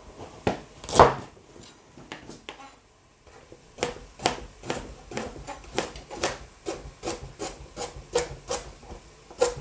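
Kitchen knife chopping a carrot on a plastic cutting board. A few loud chops come in the first second or so, then steady, even slicing into rounds at about two or three cuts a second from about four seconds in.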